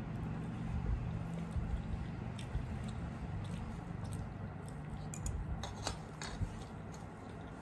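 Fingers mixing and squeezing rice with a mashed vegetable on steel plates: soft wet squishing, with a few light clicks of fingers and food against the metal a little past the middle.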